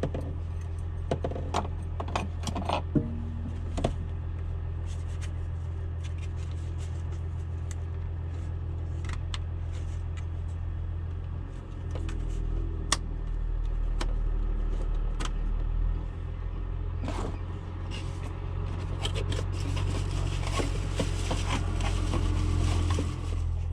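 Steady low hum of the Volvo L70F wheel loader with the key on, with a few sharp clicks and scrapes in the first few seconds as plastic panel parts are handled. The hum grows louder about halfway through, and a rushing hiss builds near the end.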